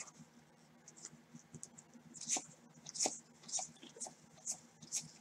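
1989 Score football trading cards being thumbed through one by one in gloved hands, each card sliding off the stack with a short papery swish. The swishes are faint for the first two seconds, then come about one every half to three-quarters of a second.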